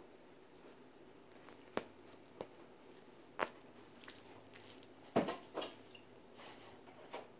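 A cat biting and chewing on catnip toys while pawing at them: a handful of irregular soft crunches and clicks, the loudest about five seconds in.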